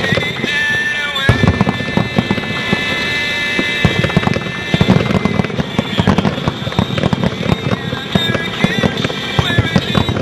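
Fireworks bursting in rapid succession, many sharp bangs and crackles overlapping, starting about a second in, with music playing underneath.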